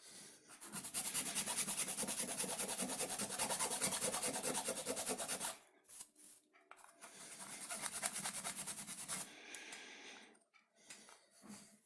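Wood being rubbed with quick, even back-and-forth strokes, in two spells: one of about five seconds, then, after a short pause, one of about three seconds.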